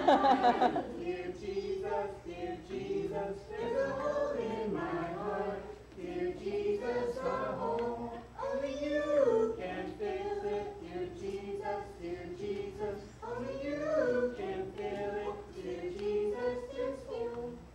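Several voices singing a song together.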